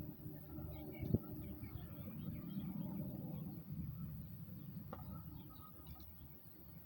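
Faint outdoor ambience with distant birds chirping in short, scattered calls, and two light knocks, about a second in and near five seconds.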